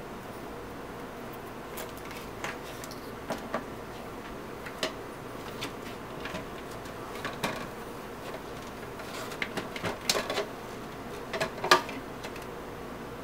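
Plastic parts of a Hamilton Beach Big Mouth juice extractor clicking and knocking as they are handled and fitted together: scattered light clicks, with a cluster of louder ones near the end, over a steady low hiss.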